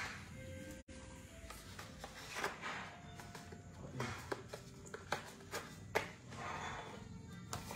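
Hands handling and opening a small black box: a scatter of light clicks, taps and rustles from the packaging.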